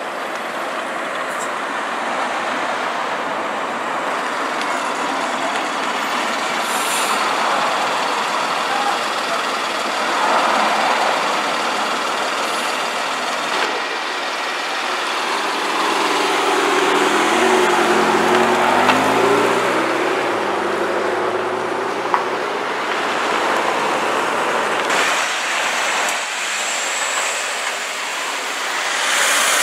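Street traffic: trucks and cars driving past with steady road and tyre noise. In the middle, one car's engine is heard, its pitch stepping up and down.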